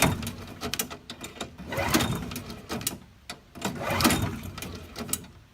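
Scrubbing and wiping on a lawnmower engine while it is cleaned: three longer rubbing strokes about two seconds apart, with many scattered clicks and knocks of handling.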